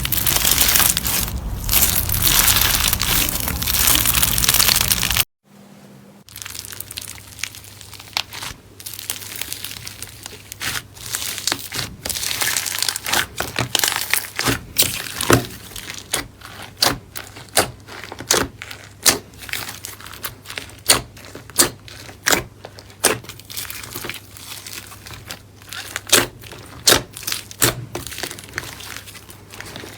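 Slime being squeezed and pressed by hand. First comes a dense crackling for about five seconds. After a brief break it gives way to a run of sharp pops and clicks, roughly one or two a second, as air pockets burst.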